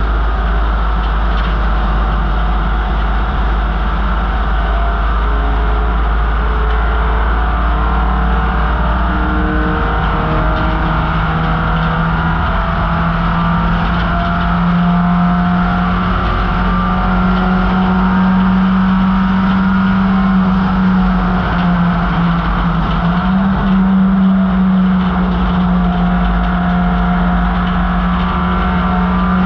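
1968 MGB GT race car's 1.8-litre B-series four-cylinder engine running hard at steady high revs under racing load, with a loud low rumble of road and wind noise. The engine note climbs slightly about halfway through and then holds.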